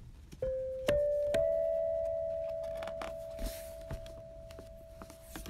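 Three struck chime notes, each a little higher than the last and about half a second apart, ringing together and fading slowly over several seconds.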